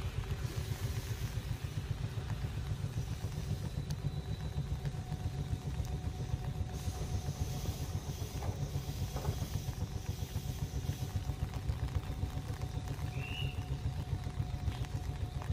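Tobu 6050 series electric train drawing slowly into the platform and coming to a stop, then standing with a faint steady hum, over a constant low rumble.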